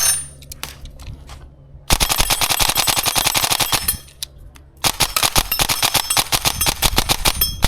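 VFC HK416A5 airsoft electric gun with a 34K brushless motor firing two long full-auto bursts, the first about two seconds and the second about three, with a short pause between.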